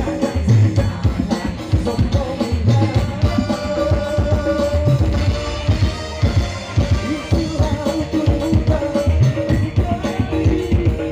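Live band music through PA speakers: a drum kit keeping a steady beat under electric guitar, bass guitar and keyboard, with a male singer's voice.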